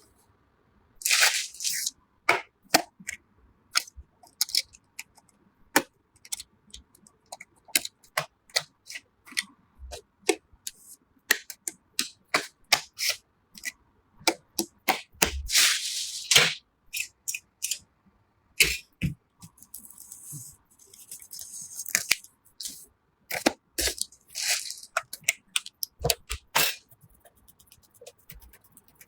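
Irregular sharp clicks, snaps and knocks of computer parts being handled and fitted together, with a few brief scraping sounds and a run of rapid light ticks near the end.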